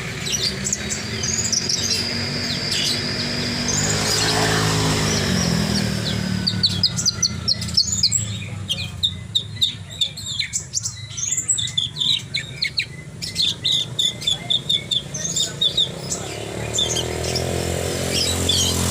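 Horsfield's bushlark (branjangan) singing a varied song of chirps and whistles, breaking into a fast run of short notes about halfway through, over a low background hum.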